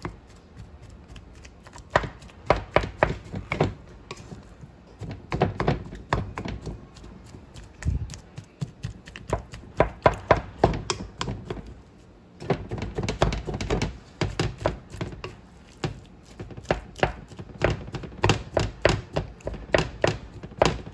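Wooden spoon mashing boiled potatoes in a metal pot, knocking against the pot's bottom and sides in runs of quick thunks, several a second, with short pauses between runs.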